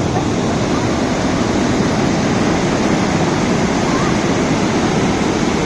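Loud, steady rush of fast-flowing water, a stream or river swollen by continuous rain.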